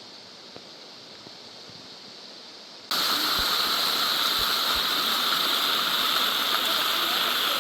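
A quiet steady outdoor hiss with a few faint clicks. About three seconds in it cuts suddenly to the loud, steady rush of a waterfall.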